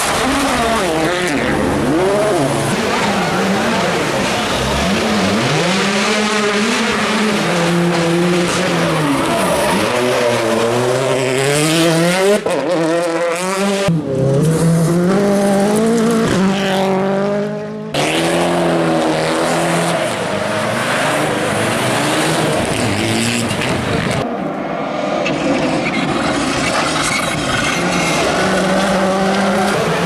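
Several World Rally Cars' turbocharged four-cylinder engines, one after another, revving hard and shifting up, then lifting off as they pass, the pitch climbing and falling over and over.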